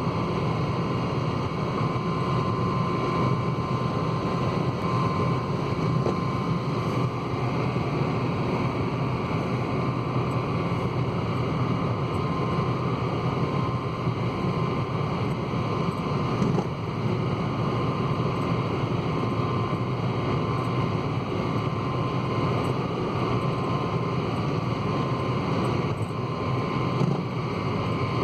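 Steady running noise of a 2013 Honda Civic, with a thin steady whine over it and a few faint ticks, heard where the car is being recorded for a rattle.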